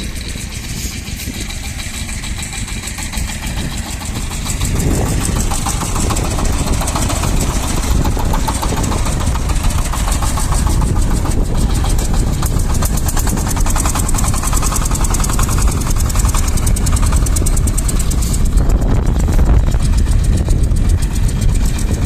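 Shifeng SF-240 mini tractor's diesel engine running under load while driving a rear-mounted rotary tiller through sandy soil. About five seconds in, the engine note rises and gets louder, then holds steady.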